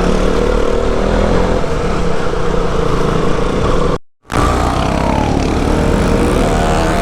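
Motorcycle engine running steadily while riding a dirt road. It cuts out for a moment a little past halfway, then resumes with its pitch shifting.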